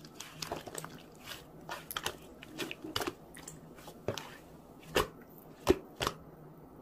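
Thick slime squeezed and pressed by hand, giving irregular sticky clicks and small pops, with a few louder pops near the end.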